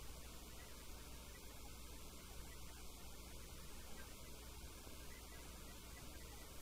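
Faint, steady electrical mains hum under a low even hiss of room noise.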